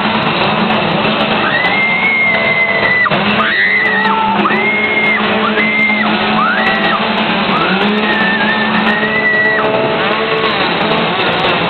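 A two-stroke chainsaw revving again and again in bursts of about a second, each rising fast to a held high whine and dropping back, with people shouting and screaming.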